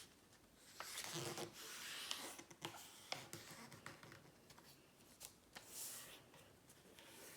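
Faint rustling and sliding of a sheet of printer paper being folded in half lengthwise and the crease smoothed down by hand, with a few small clicks.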